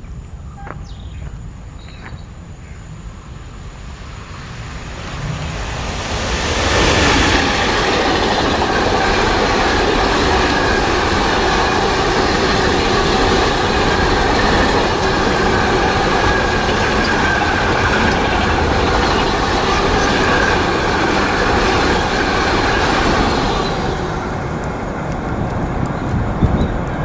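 Electric freight train of double-deck car-carrier wagons, hauled by a Class 186 (TRAXX) electric locomotive, passing close at speed: steel wheels rolling on the rails. It builds up quickly about six seconds in, runs steady and loud for about fifteen seconds as the wagons go by, then dies away near the end with one brief knock.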